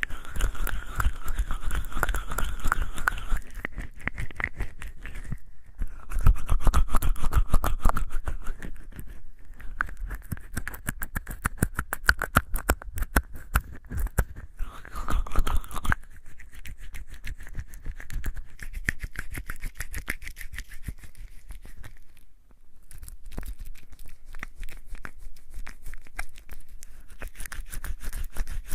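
Wet hands being washed with a bar of soap: close, continuous rubbing and squelching of soapy lather, a dense crackle with louder stretches of scrubbing.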